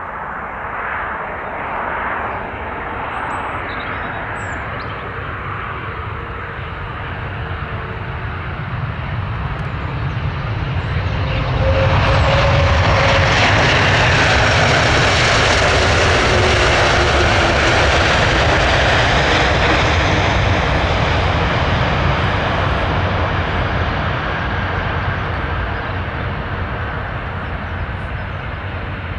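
Airbus A330-300's Rolls-Royce Trent 700 jet engines on the landing rollout. A steady rumble swells sharply about twelve seconds in and holds loud for some ten seconds as the airliner rolls close past, then eases off as it slows down the runway.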